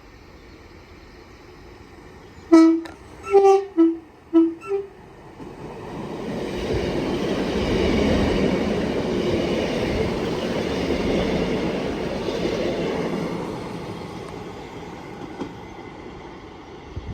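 Two coupled Class 150 Sprinter diesel multiple units sounding a two-tone horn in about five short toots. They then pass at speed, the running noise rising to a peak and fading away.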